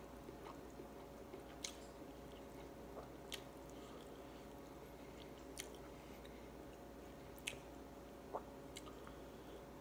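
Quiet sounds of eating by hand: fingers working rice and fish on a plate, with a few short sharp clicks spaced a second or two apart over a faint steady hum.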